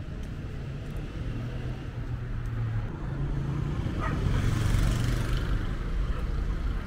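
Street traffic: a motor vehicle passes close by over a steady low traffic hum, growing louder to a peak about two-thirds of the way through, then easing off.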